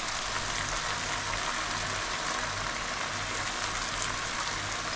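Sauce simmering and sizzling steadily in a frying pan.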